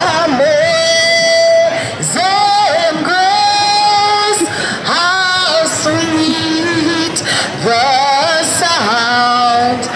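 A woman singing, holding long notes and sliding between them, with short breaks between phrases.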